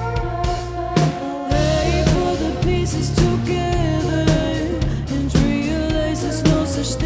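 Live rock band playing: sung vocals over bass, guitar and a drum kit keeping a steady beat.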